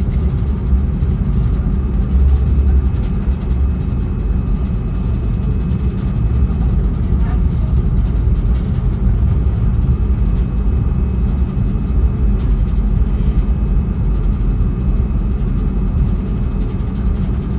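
Steady low rumble of cabin noise inside an Airbus A321neo airliner taxiing after landing, with a faint steady high whine over it.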